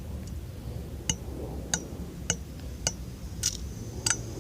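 A regular run of sharp, light clicks, a little under two a second, with a faint high whine coming in near the end.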